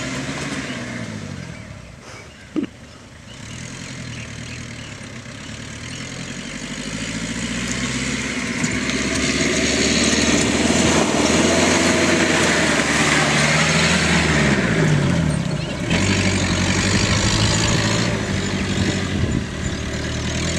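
Jeep engine revving as it drives over soft ground. It grows louder as it comes closer, its revs rising and falling, with a short drop about three-quarters of the way through before it picks up again.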